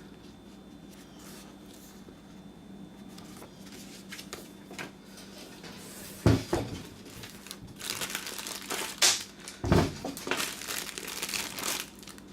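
Plastic packaging crinkling as small accessories and a power cord are unwrapped by hand. It is quiet at first, then two knocks come about halfway through and again a few seconds later, with crinkling through the rest.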